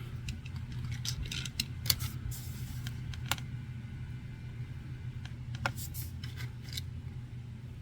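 Scattered light clicks and taps of small objects being handled, with a brief rustle a little after two seconds, over a steady low hum.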